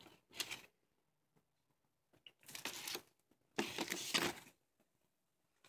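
A shrink-wrapped vinyl record jacket being handled and turned over against a cardboard mailer box: three brief rustles of plastic and card, the last two close together and the last the longest.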